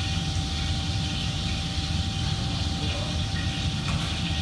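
Steady low rumble of running machinery, with a faint whine held on one pitch.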